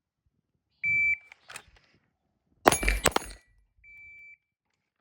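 A shot timer's high electronic start beep, followed about a second and a half later by a quick volley of several pistol shots fired almost together, then a second, fainter beep of the same pitch.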